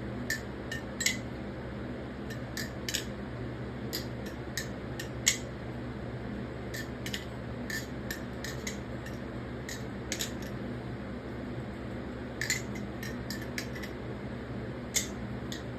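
Nabalis Impulse aluminium balisong trainer being flipped: its handles and latch click and clack against each other in irregular sharp bursts, over a steady low background hum.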